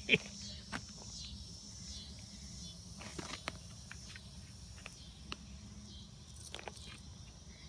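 Timber rattlesnake coiled in defence and buzzing its rattle: a faint steady high buzz that weakens after about three and a half seconds. A few crunches of footsteps and a stick on gravel sound over it.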